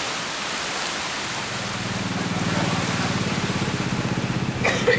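Steady hiss of heavy falling water, like rain. About a second and a half in, a low engine starts running steadily underneath it. A short burst of sharper sounds comes near the end.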